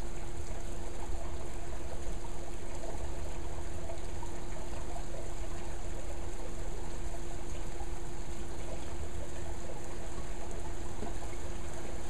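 Steady monsoon rain falling on a backyard swimming pool and patio, a continuous wash of running, trickling water over a steady hum.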